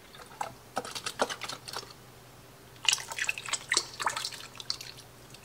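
Whole milk being poured into a pot of melted butter, cream cheese and cream, splashing and dripping in two spells, the second one longer.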